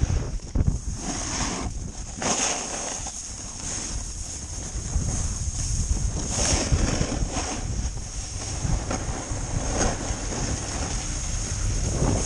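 Wind buffeting the camera's microphone while a snowboard slides over groomed snow, with several louder scrapes as the board's edge bites in on the turns.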